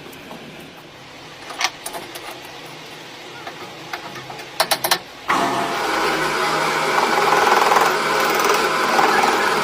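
A few sharp metallic clicks, then about five seconds in a workshop machine's electric motor starts abruptly and runs steadily with a whirring drive hum.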